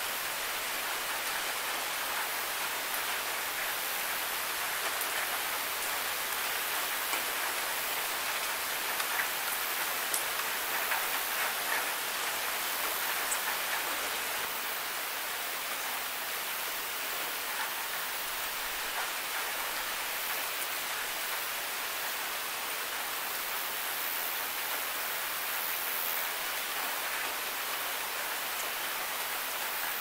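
Steady rain falling, an even hiss with a few sharper drop ticks here and there.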